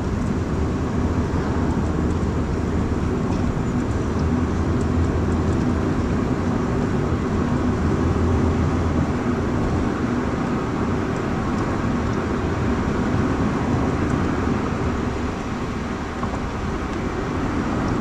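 Steady running noise of a car on the move, heard from inside the cabin: engine and tyre rumble at a constant level, easing slightly near the end.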